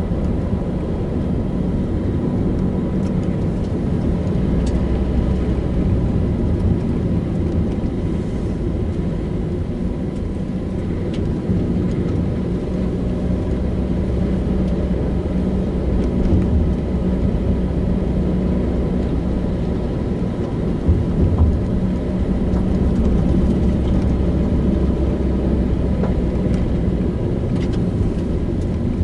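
Car driving along, a steady low rumble of engine and tyres on the road with a few light ticks.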